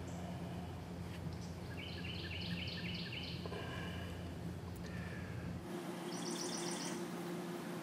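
Songbirds singing over steady outdoor background noise: a short run of about five quick repeated chirps a couple of seconds in, and a fast high trill near the end.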